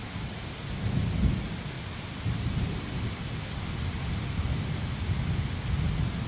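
Rain falling steadily, with low thunder rumbling underneath and swelling a few times.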